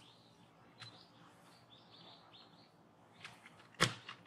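Faint high chirping, with small clicks and one sharp knock near the end.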